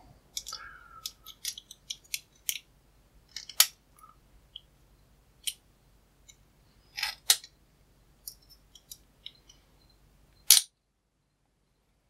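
Small, sharp metallic clicks and ticks at irregular intervals as the brass core of a padlock and its tight retaining clip are worked at by hand to get the clip off. The loudest click comes near the end.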